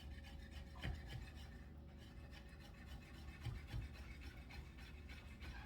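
Fresh chives being cut by hand: a run of faint, quick cutting and scraping sounds, with one sharper click about a second in.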